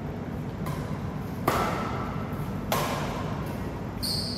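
Badminton rally: a racket hits the shuttlecock three times, roughly a second apart, the first faint and the second the loudest. A short high squeak comes near the end.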